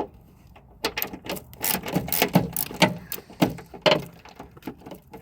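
Irregular metallic clicks and knocks from hand tools working on a car's top engine mount, mostly in the middle of the stretch.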